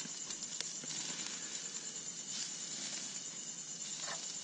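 Pork neck sizzling on a small portable barbecue: an even hiss with a few faint crackles, under a steady high-pitched insect trill.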